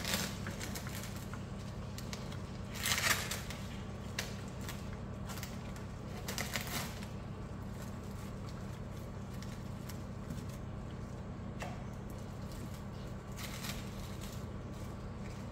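Thin plastic bag rustling and crinkling in a few short bursts as raw beef is pulled out of it, over a steady low hum.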